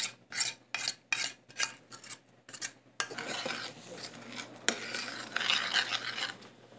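Metal spoon scraping food from a steel pan into a skillet in quick repeated strokes, about three a second. About three seconds in, these give way to a steadier, continuous scraping as the spoon stirs the sauce around the skillet.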